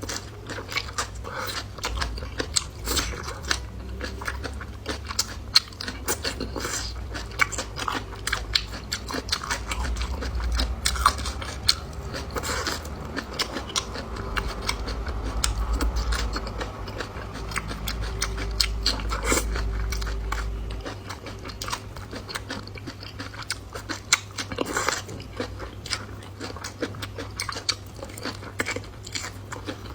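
Close-up chewing and biting of food, with many quick irregular clicks and crunches from the mouth over a steady low hum.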